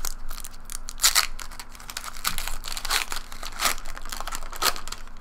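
A 2012-13 Panini Preferred basketball card pack being torn open by hand. The wrapper crinkles and crackles throughout, with a few louder rips spread through.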